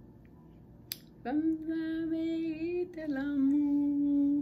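A woman singing without words, holding one long note from about a second in, then a slightly lower one.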